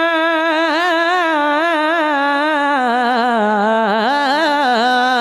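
A man's voice singing a naat into a microphone: a long held note, then from about a second in the note breaks into wavering ornamental runs that step downward in pitch.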